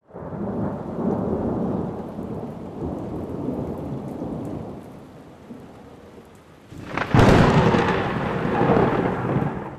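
Thunderstorm sound effect: rolling thunder with rain that slowly dies down, then a sharp, loud thunderclap about seven seconds in that rumbles on.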